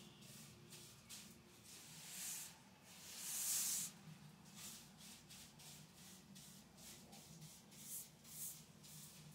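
Broom sweeping a floor: a few faint swishing strokes, the strongest about two and three and a half seconds in.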